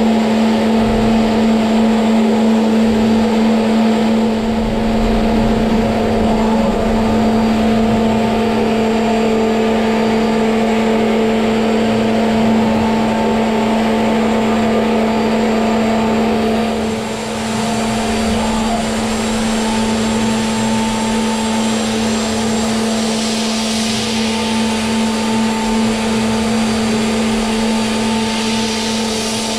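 CNC milling machine's HITECO spindle running at a steady pitch while an end mill cuts an aluminium part: a steady tone with cutting noise over it. The sound dips and changes briefly about 17 seconds in, and more hiss comes in after that.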